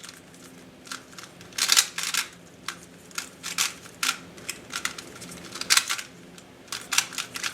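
GAN 356i plastic 3x3 speedcube being turned fast during a solve: layers clacking in quick bursts of several clicks, with short pauses between bursts.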